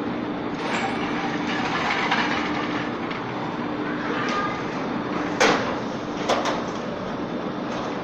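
Steady mechanical hum of a summer toboggan run's drag-lift machinery, with sharp metallic clanks about five and a half and six and a half seconds in.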